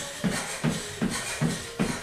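Background music with a fast, steady beat, about two and a half beats a second.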